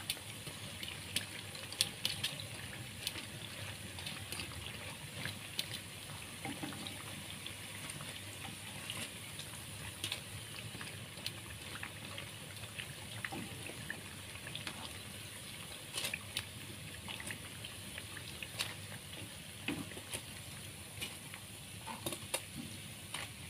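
Corn fritters deep-frying in hot oil in a wok: a steady sizzle with small crackling pops, the foam having died down as the fritters turn golden and near done. Metal tongs and a skimmer click against the pan now and then.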